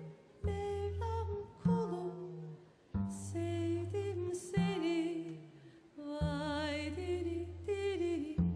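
Female voice singing a Turkish folk song (türkü) melody in short phrases with strong vibrato, over deep sustained bass notes from a live acoustic band.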